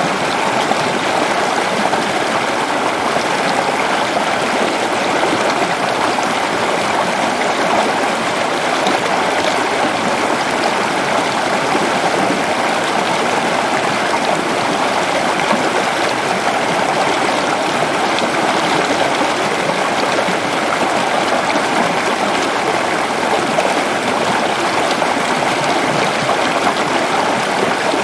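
Waterfall with water falling and splashing in a steady, unbroken rush, strongest in the mid range, without change.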